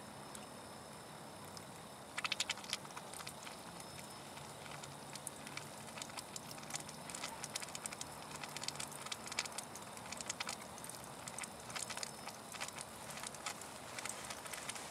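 Irregular clicking and crackling from a screwdriver tip worked against a terminal or fitting in a diesel engine bay, starting about two seconds in and coming more thickly later. No engine is running or cranking.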